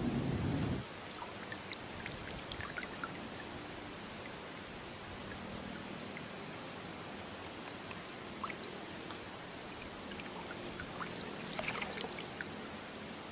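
Water trickling and dripping, with scattered small drips and light splashes. A loud low rumble cuts off abruptly just under a second in.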